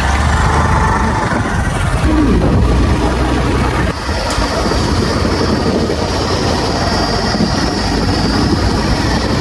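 Hero Glamour motorcycle riding along a dirt track, its engine running under heavy rumbling wind noise on the microphone.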